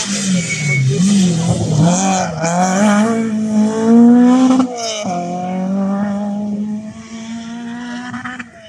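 A rally car's engine revving hard, its pitch rising and falling through gear changes and climbing to a peak about halfway through. It then drops sharply and holds a steadier lower note that fades as the car moves off.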